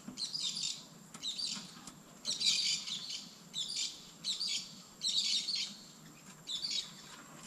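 Birds chattering and chirping in about seven rough bursts, each under a second long, coming roughly once a second.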